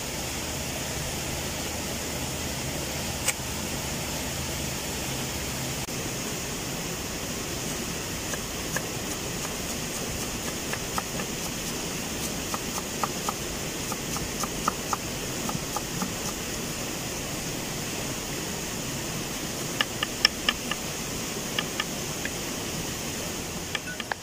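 Kitchen knife chopping fresh coriander on a wooden board: a run of light, quick knocks starting about ten seconds in, and a second run about twenty seconds in, over a steady background hiss.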